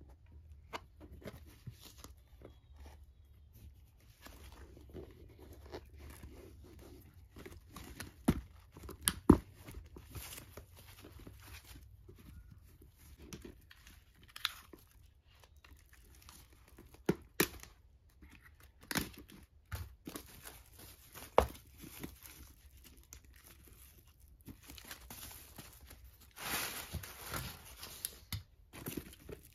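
Hands handling a Coach Mollie Bucket 22 handbag: soft rubbing and handling noise with scattered sharp clicks and taps, and a stretch of paper rustling near the end, typical of the tissue stuffing inside the bag.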